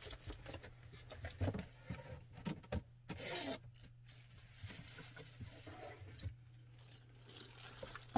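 Packaging being handled while an air fryer is unboxed: scattered rustles of clear plastic wrapping and light knocks, over a steady low hum.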